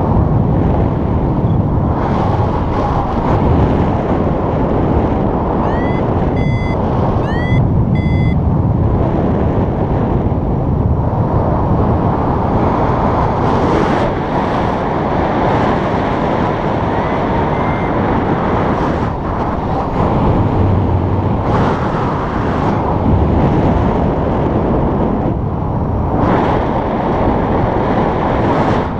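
Steady rush of flight wind over the camera microphone during a paraglider flight. About six seconds in comes a short run of electronic beeps that slide up and then hold, with one faint beep near eighteen seconds: a paragliding variometer's climb tone, the sign of rising air.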